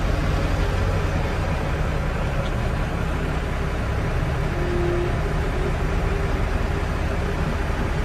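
Tractor engine running steadily at idle, heard from inside the cab.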